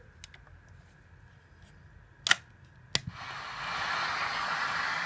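Becker Grand Prix car radio going quiet while its controls are worked, with a few sharp mechanical clicks, a double one about two seconds in and another just under a second later. Then a steady static hiss comes up from the speaker as the tuner settles on a weak FM signal from an indoor, unboosted antenna.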